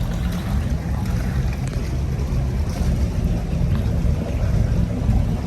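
The twin engines and generator of a 1995 Sea Ray 400 running together, a steady low rumble that holds an even level throughout.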